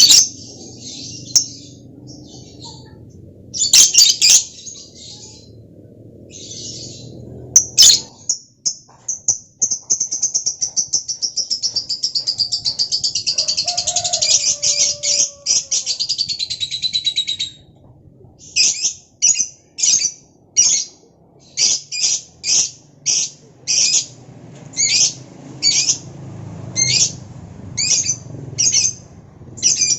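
Lovebird singing. Scattered sharp chirps give way about eight seconds in to a long, rapid trill of some nine seconds that drifts slightly down in pitch, followed by a steady series of short, high chirps at a little under two a second.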